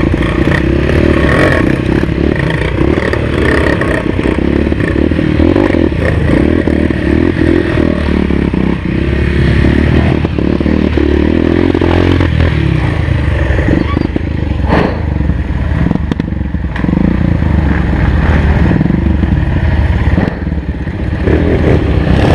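Dirt-trail motorcycle engine running under load, its revs rising and falling as it rides, with clattering and a few sharp knocks from the bike partway through.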